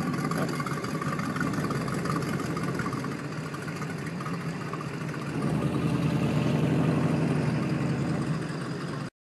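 Motorboat engine running at idle as the boat moves slowly through the water. It gets louder about five and a half seconds in, then the sound cuts off abruptly just before the end.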